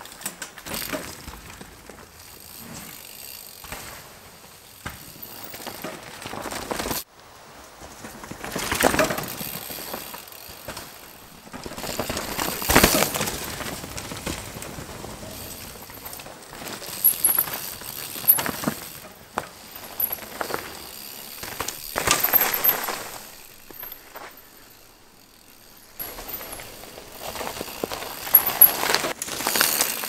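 Mountain bike riding over a dirt and leaf-litter forest trail: tyres rolling on the ground with irregular rattles and clicks from the bike, rising and falling as the rider passes. The sound breaks off suddenly twice, about seven seconds in and again near the end, where the shots change.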